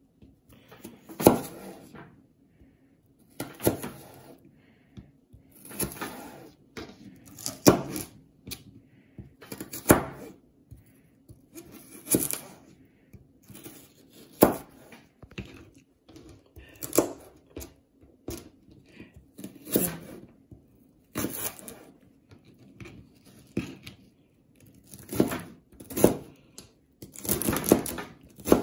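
Chef's knife cutting through celery stalks and striking a plastic cutting board: separate cuts about every two seconds, coming closer together near the end as the celery is diced.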